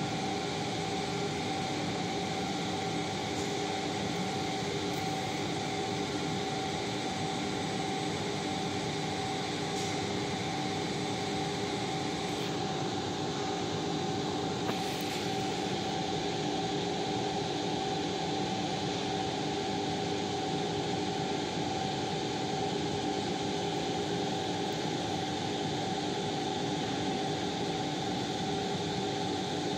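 Steady machinery hum and hiss with a few held tones, unchanging throughout.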